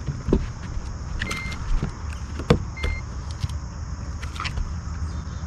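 Knocks and clatter on a bass boat's front deck as a just-landed largemouth bass is handled, the sharpest knock about halfway through. Two short electronic beeps, about a second and a half apart, and a steady high insect drone run underneath.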